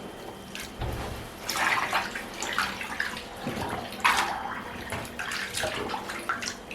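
A fleece being squashed down by hand into a bathtub of cold soapy water: irregular sloshing and splashing as the water soaks into the fabric.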